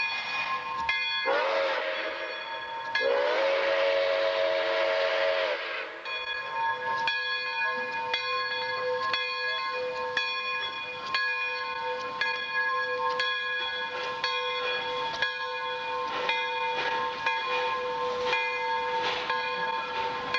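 Pere Marquette 1225, a 2-8-4 Berkshire steam locomotive, sounds its chime steam whistle twice with a hiss of steam: a short blast, then a longer one. A bell rings steadily throughout as the engine and its tender roll past.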